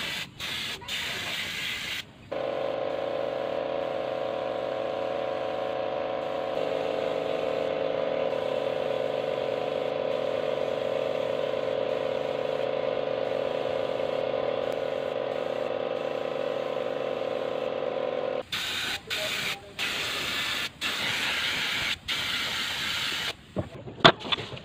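Compressed-air paint spray gun spraying a sewing machine body. It gives short bursts of hiss in the first two seconds, then a long steady hiss with a faint humming tone, then more on-off bursts as the trigger is worked. A few sharp knocks come near the end.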